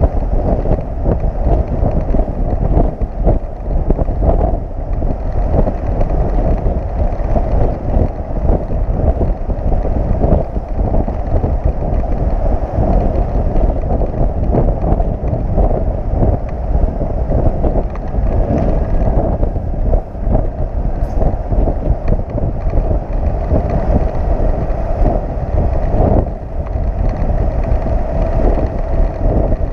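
Wind buffeting the microphone of a camera mounted on a motorcycle riding on a moving flatbed tow truck at highway speed, over the steady rumble of the truck and road.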